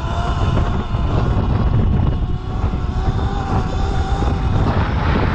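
Wind buffeting the microphone of a Sur-Ron electric dirt bike at riding speed, with a faint steady whine from its electric motor under the rumble.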